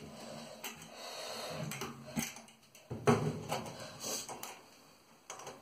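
Handling of a small metal hook-and-eye latch being fitted to a cage panel with a hand tool: a stretch of scraping and rustling, then a few light, sharp clicks of metal and tool.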